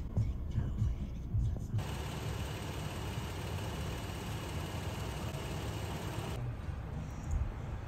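Truck engine idling with a steady low rumble. A steady hiss comes in abruptly about two seconds in and cuts off just as abruptly about six seconds in.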